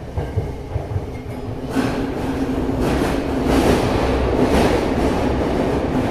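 Tokyo Metro 7000 series subway car running, heard inside the car: a low rumble of wheels on rail that grows louder about two seconds in, with a steady hum and several sharper clacks spaced about a second apart.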